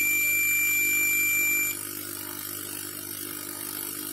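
UNI-T UT33D digital multimeter's continuity buzzer giving one steady high-pitched beep that cuts off abruptly about a second and a half in as the probes lift off. The beep marks a near-zero-ohm reading across the zero-ohm resistor under test: the resistor is good.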